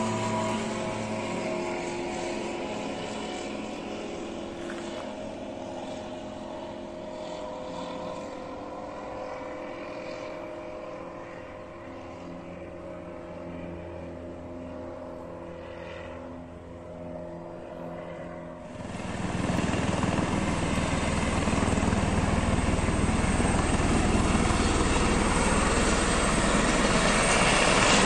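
A single-engine propeller training plane flying overhead, its engine drone slowly fading as it moves away. About two-thirds through it cuts suddenly to a louder, steady rushing noise with a low hum from a light helicopter flying nearby.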